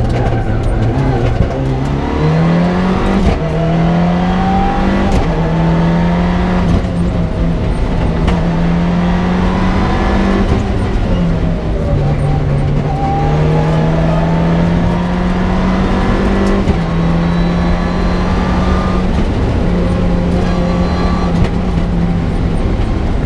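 Mitsubishi Lancer Evo 6's turbocharged 2.0-litre four-cylinder engine, heard from inside the cabin, driven hard at rally pace. Its pitch climbs and drops back several times as the driver shifts gears.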